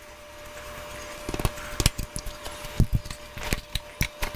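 Irregular light knocks and clicks of metal parts as a dirt bike's rear axle is worked out and the wheel is shifted free in the swingarm.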